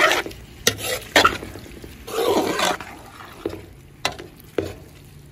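A large spoon stirring and scraping a thick, wet meat-and-sausage mixture in a big metal pot, with several short, sharp scrapes against the pot.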